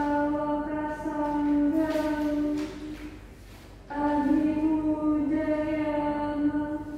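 A woman's voice chanting Buddhist paritta, long held notes on a nearly level pitch. There are two phrases with a short pause for breath between them.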